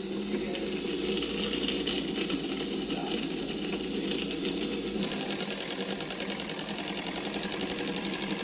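Pathex Model C 9.5mm film projector running on its electric motor: a fast, steady mechanical clatter from the single-pin claw pulling film through the gate.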